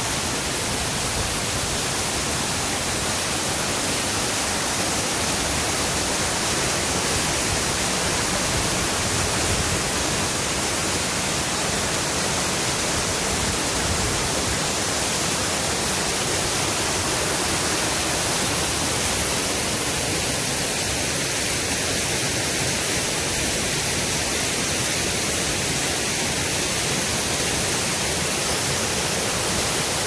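Waterfall rushing steadily, white water cascading close by over rocks.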